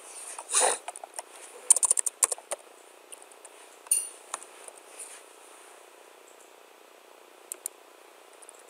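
Computer keyboard typing: a quick run of key clicks about two seconds in, a short rattle of taps around four seconds, and two more clicks near the end. A brief, duller noise comes just before the first run.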